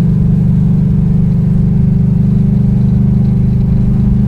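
Car engine and exhaust heard from inside the cabin while driving at a steady speed, a loud, even low drone.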